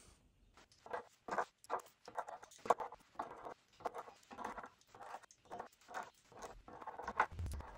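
Hand-handling noises while unboxing and assembling a machine: an irregular run of short, light knocks, clicks and scrapes, two or three a second, as parts and packaging are picked up and set down.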